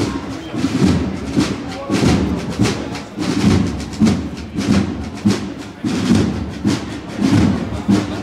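Marching drums of a cornet-and-drum band beating a steady march rhythm, low thumps and sharp strokes about twice a second, with the cornets silent.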